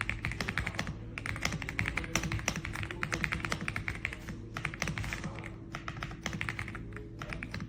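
Fast typing on an RK Royal Kludge R75 gasket-mounted 75% mechanical keyboard: a dense run of key clicks with a few short pauses.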